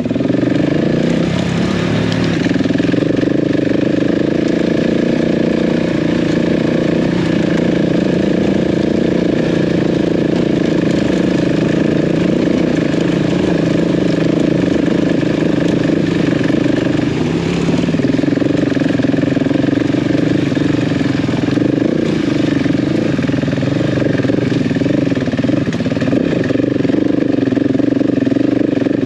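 KTM adventure motorcycle engine running steadily under load on a rough trail climb, with small changes in throttle.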